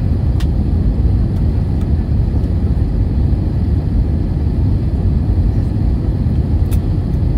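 Steady low rumble of jet engines and rushing air inside the cabin of an Airbus A320-family airliner descending on approach to land. Two faint clicks, one soon after the start and one near the end.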